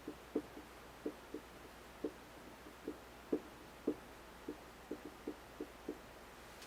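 Jaw joint (temporomandibular joint) popping: about fifteen short, dull pops at irregular intervals, a few of them louder, as the mouth opens and closes. Faint hiss runs under them.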